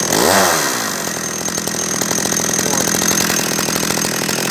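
Hyundai X460 two-stroke chainsaw engine running unloaded. It revs briefly at the start, drops back within the first second, then settles to a steady idle.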